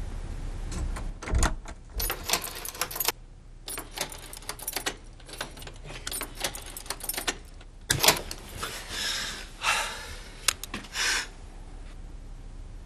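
A bunch of keys jangling and clicking in a row of door locks as they are unlocked one after another: a long run of short metallic clicks and rattles. About eight seconds in comes a loud knock, followed by a few longer scraping sounds.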